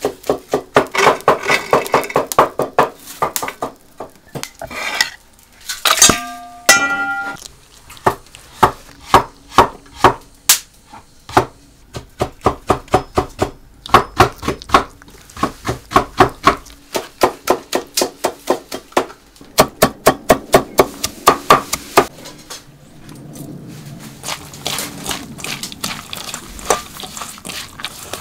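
A cleaver chopping cabbage on a wooden board: fast runs of sharp knocks, about five a second, with short pauses between runs. Near the end the chopping stops and gives way to a softer squelching rustle as the chopped filling is mixed by hand in an enamel bowl.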